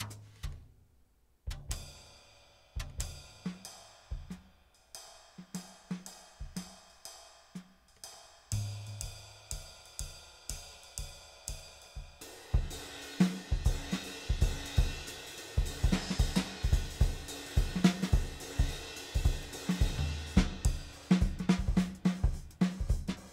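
Sampled vintage drum kit, the Ivory Kit of Native Instruments' Abbey Road Vintage Drummer, playing a series of preset grooves on kick, snare, hi-hat and cymbals. The pattern switches several times after a short break about a second in. From about twelve seconds in it plays faster and louder under a steady cymbal wash.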